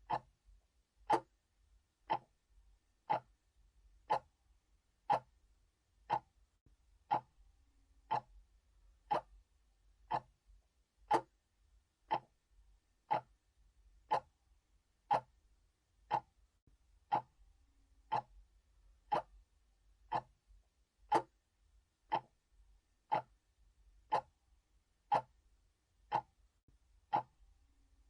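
Analog clock ticking steadily, one sharp tick each second.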